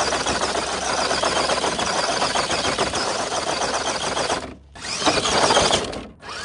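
Electric RC car running at speed: a steady, dense whir from its motor and gears. It cuts out abruptly about four and a half seconds in, then runs again for about a second before cutting out again.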